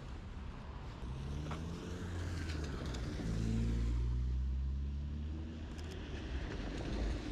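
A car driving past on a rain-wet street: a low engine note that rises and falls, with the hiss of tyres on the wet road, loudest about halfway through.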